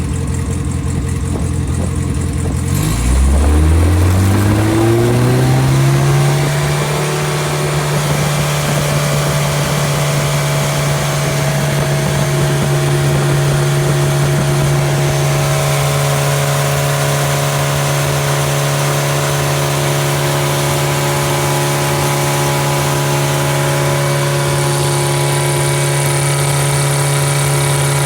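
Freshly rebuilt engine running without a muffler on a test stand. It idles, then about three seconds in is brought up smoothly to a higher speed, rising in pitch for about three seconds, and holds there steadily. The ignition timing has only been set by ear and the head not yet retorqued nor the valves readjusted.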